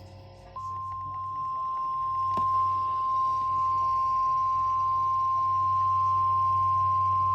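NOAA Weather Radio warning alarm tone: a single steady 1050 Hz tone that switches on just under a second in and holds, the signal that a weather warning is about to be broadcast. A low hum runs underneath, and a brief click comes about two and a half seconds in.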